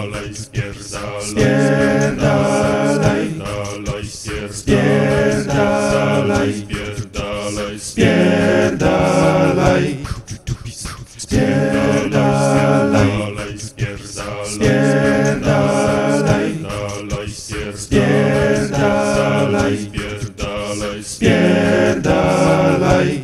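A cappella vocal music: voices singing in harmony without instruments, in phrases of a few seconds with short breaks between them, the phrase pattern repeating.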